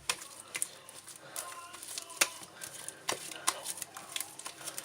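Sticky homemade glue slime being kneaded and pulled apart by hand, giving irregular wet clicks and pops. The slime is still slightly sticky and clinging to the hands.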